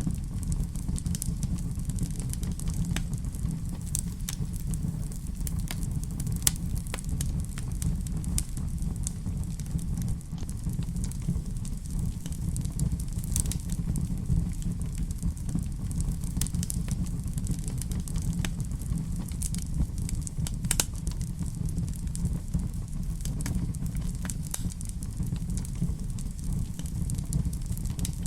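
Fire burning in a fireplace: a steady low rumble with frequent sharp crackles and pops at irregular intervals.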